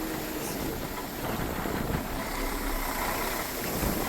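A vehicle's engine running steadily, with a low rumble.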